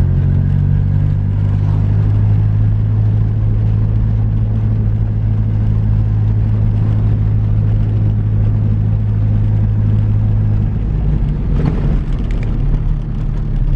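Nissan 240SX driving slowly over a rough road: a steady engine and road drone that eases off about eleven seconds in. No clunk from the front suspension is picked out, which fits the passenger-side coilover's lock collar now being tightened and its preload set.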